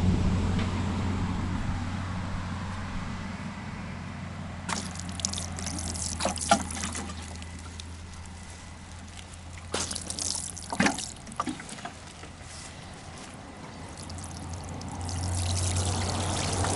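Water poured over granite pieces, splashing and trickling in several separate spells. A low steady hum is loudest at the start and fades over the first few seconds.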